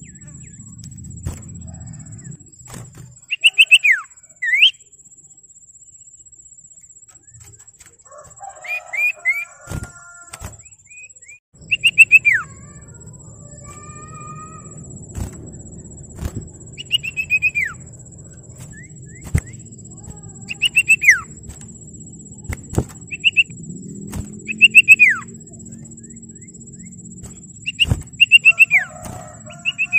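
Common iora (sirtu, cipoh) singing: short runs of loud, clear whistles, each note sliding steeply down in pitch, repeated every few seconds, with a few lower warbled notes between them.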